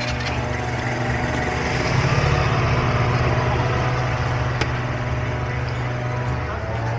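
Small motor scooter engine running, revving up about two seconds in as it pulls away, then easing back.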